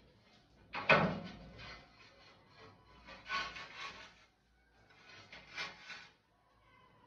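A ceramic wall tile knocked down onto a concrete ledge about a second in, then scraped over the surface beneath it in two short rubbing strokes.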